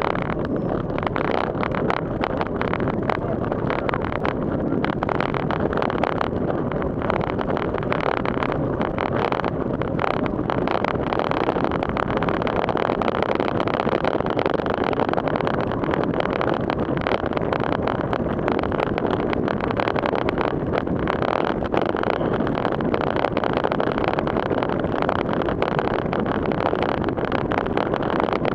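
Bicycle rolling through standing water on wet pavement: a steady hiss and wash of tyre spray, with wind on the microphone. Many small clicks and knocks are scattered throughout.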